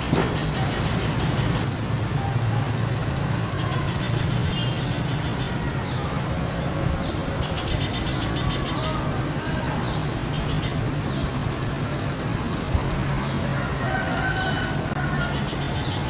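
A male little spiderhunter calling: a steady run of short, sharp high notes, about one or two a second, typical of a male calling to a female. Under it run a steady low hum and a constant high, thin whine.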